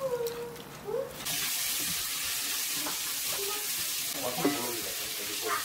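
Food sizzling in a hot frying pan: a steady frying hiss that starts abruptly about a second in, with a few light clicks on top. A brief wavering vocal sound is heard at the very start.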